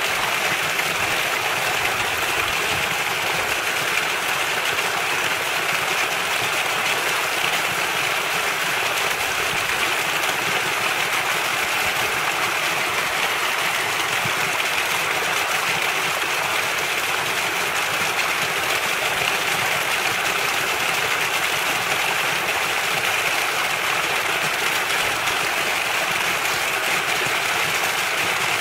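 Water from an acequia irrigation ditch falling down a short drop into a stone-walled pool: a steady, unbroken rush of splashing water.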